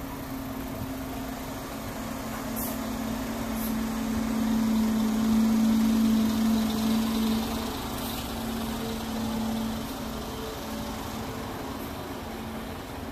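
A motor vehicle's engine running with a steady low hum, growing louder toward the middle and fading again, as of a vehicle passing slowly.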